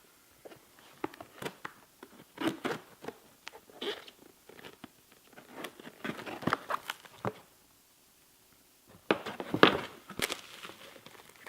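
Unpacking a shipping box by hand: irregular ripping, crinkling and rustling of packaging. There is a brief pause, then a louder burst of tearing and rustling near the end.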